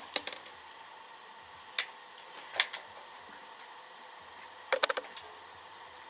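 Short mechanical clicks and snaps in a few small groups, the last and busiest one about five seconds in: handling of a Gamo P900 .177 air pistol between shots. There is no shot crack among them.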